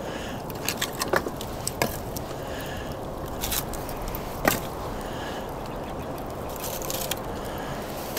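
Campfire crackling, with split firewood being handled and laid on the fire: several sharp pops and knocks in the first two seconds and a louder one about halfway through, over a steady hiss.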